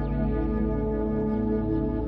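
Ambient new-age music of sustained, layered tones with a slow gentle pulsing.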